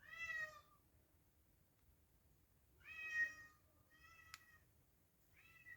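A domestic cat meowing four times, each meow short and slightly falling in pitch, with a single small click about four seconds in.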